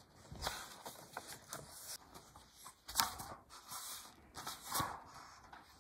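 Pages of a thick hardcover textbook being flipped by hand: a quick, irregular run of paper swishes and riffles, the sharpest about three seconds in.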